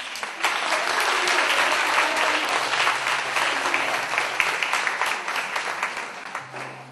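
Audience applauding, many hands clapping; the applause swells right at the start and tapers off near the end.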